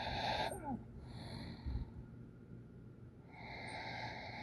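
A person snoring with wheezy, noisy breaths. The first breath ends in a short squeak that falls in pitch, a fainter breath follows, and a longer breath comes near the end.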